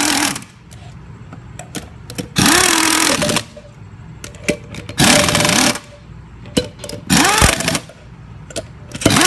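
Handheld power driver running the long hub bolts in, in four short bursts of about a second each, its motor pitch rising and falling with each pull of the trigger. Light clicks of parts and tools between the bursts.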